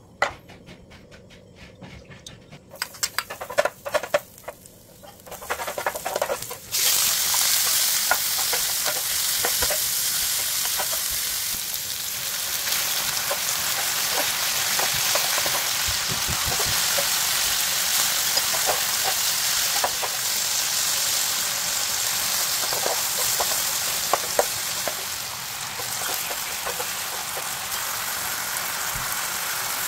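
A few knocks and clicks, then about seven seconds in a sudden loud, steady sizzle as pieces of pork belly fry in hot oil in a pan. Clicks and scrapes of a metal spatula stirring the meat run through the sizzle.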